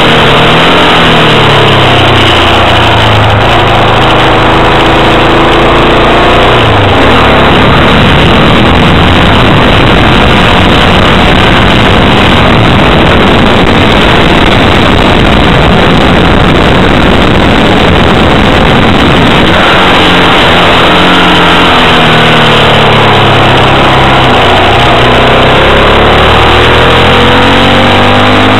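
Yamaha XT motorcycle engine heard from the bike while riding a winding road, its pitch falling and rising with throttle and gear changes. Through the middle stretch a dense rushing noise covers the engine almost completely.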